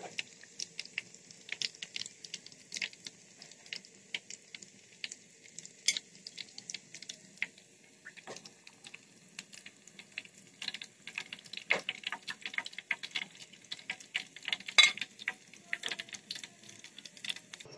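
Hot oil sizzling and crackling as chicken-and-potato chops deep-fry in a pan, with many irregular sharp pops over a steady hiss.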